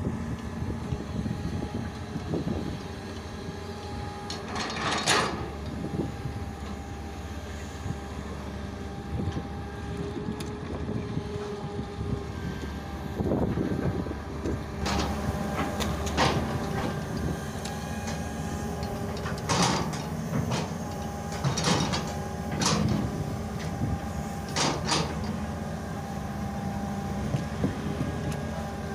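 Hitachi long-reach excavator's diesel engine running steadily while it digs, with sharp knocks and clanks from the bucket and arm: one about five seconds in, then several in the second half.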